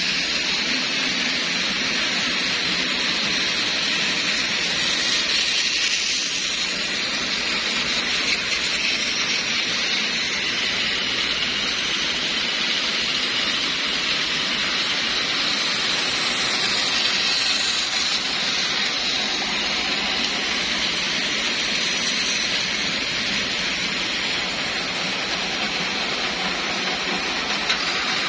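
Several battery-powered Plarail toy trains running together on plastic track: a steady high whirring of small motors and gears with the rattle of plastic wheels on the rails.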